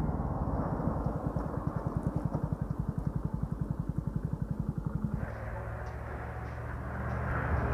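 Hero Splendor BS6's 100cc single-cylinder four-stroke engine running at low revs as the motorcycle rolls slowly, an even pulsing of about a dozen beats a second. About five seconds in, the sound changes abruptly to a steadier low hum.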